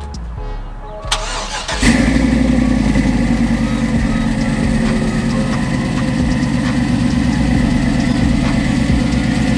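Cat-eye Chevrolet Silverado pickup's engine firing up with a sudden start about two seconds in, then idling steadily.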